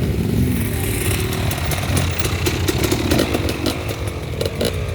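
Harley-Davidson V-twin motorcycle engine running loud, its revs rising and falling a little.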